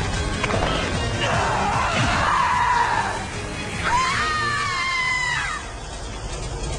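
Dramatic background music with an anime character screaming: first a rough, strained scream from about a second in, then a high-pitched scream that rises and holds for about a second and a half from about four seconds in.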